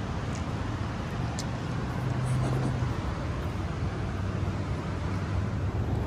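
Steady low rumble of road traffic, with one vehicle's engine hum standing out briefly about two seconds in.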